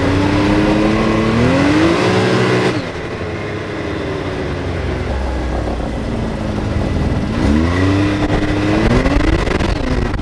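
Turbocharged Can-Am side-by-side engine heard from the open cab, accelerating with its pitch rising for a few seconds before cutting off abruptly as the throttle is let off. It runs lower for a few seconds, then pulls up again in pitch near the end.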